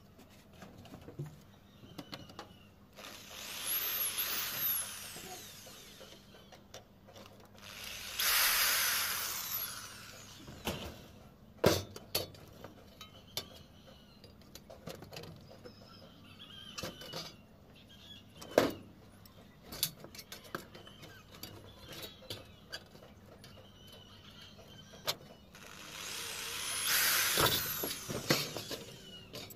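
Electric hand drill running in three short bursts, drilling into a corrugated metal roof sheet; the first burst carries a rising whine as the motor spins up. Between the bursts come several sharp single clanks of metal on the roof.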